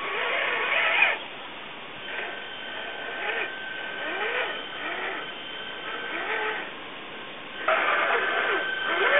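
Electric motor and geared drivetrain of a radio-controlled scale crawler truck whining, its pitch rising and falling again and again as the throttle works it through shallow muddy water. It is abruptly louder near the end.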